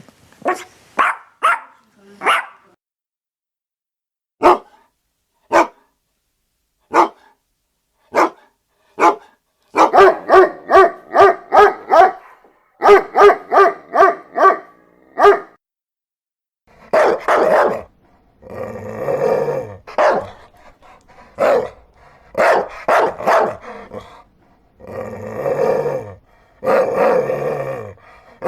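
Dogs barking in a series of separate takes. First come a few quick barks, then single barks about a second apart. A fast run of about four barks a second follows, then longer, deeper barks near the end.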